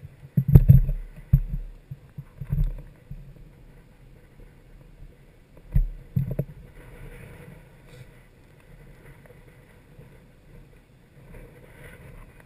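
Wind buffeting and knocks on a helmet-mounted action camera's microphone: irregular low thumps, loudest in the first three seconds and again about six seconds in, then a quieter low rumble.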